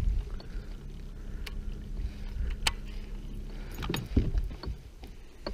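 Small aluminium fishing boat being handled: a few sharp knocks and clicks of gear against the hull over a low rumble, with a faint steady hum that stops about two-thirds of the way through.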